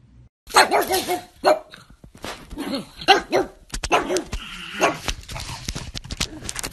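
Pug barking repeatedly in a run of short barks, starting about half a second in.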